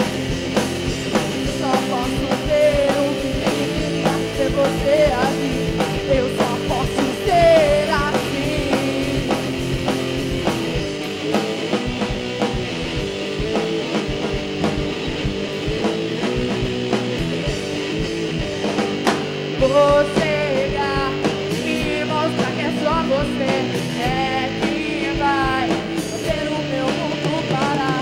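A rock band playing live: electric guitars and drums under a woman's singing voice, the vocal line coming in and out over a steady band sound.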